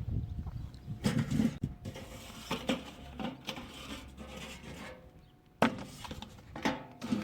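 A man sneezing three times, each sneeze starting sharply: one about a second in, then two more close together near the end, the sharpest of them the first of that pair.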